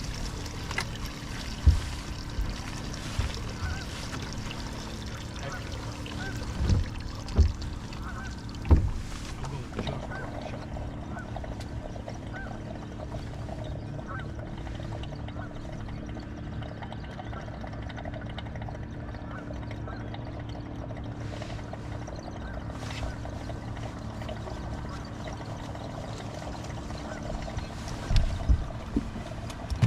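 Short bird calls repeated about once a second over a steady low hum, with a few sharp knocks near the start and again near the end.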